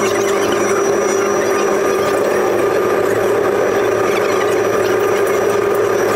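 Tram running at a steady speed, heard on board: a steady electric motor hum and whine over the rolling noise of wheels on rails.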